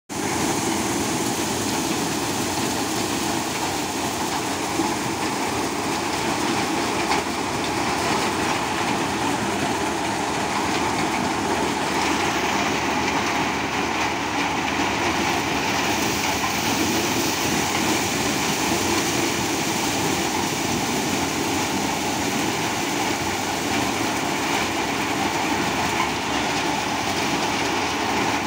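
Maize dehusking and shelling machine running steadily while threshing cobs, a continuous loud mechanical noise with no break, as shelled kernels pour from its outlet chute.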